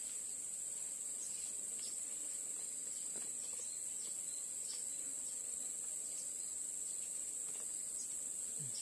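Steady, high-pitched drone of forest insects, unbroken throughout, with a few faint scattered clicks.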